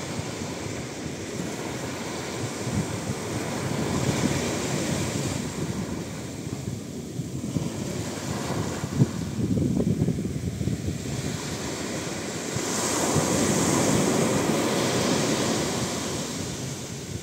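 Sea waves breaking and washing up a sandy beach, the surf swelling louder every few seconds as each wave comes in, with wind on the microphone.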